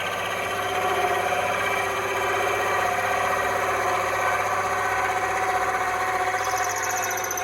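Electric drill motor running steadily with a slight drift in pitch, boring into wood.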